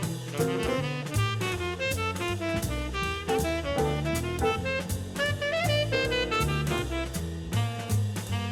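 Background jazz music: a saxophone melody over bass and drums with a steady beat.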